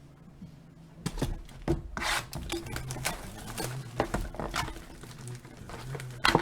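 Cardboard and plastic wrap rubbing and scraping as a sealed box of trading cards is opened, with a quick run of short scrapes and taps starting about a second in.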